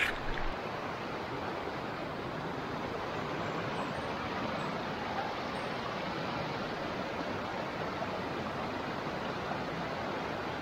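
Small mountain creek in flood, water rushing steadily over rocks.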